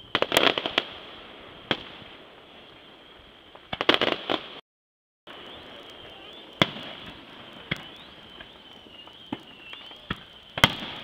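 Aerial fireworks bursting overhead: quick clusters of sharp bangs and crackles near the start and again about four seconds in, then single bangs every second or so. A faint steady high whine runs underneath, and the sound drops out for about half a second near the middle.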